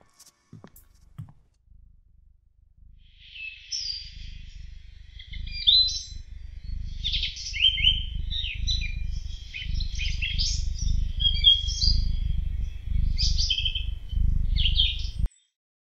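Small birds chirping and twittering in quick, varied calls over a steady low rumble, both building up over the first few seconds and cutting off suddenly near the end.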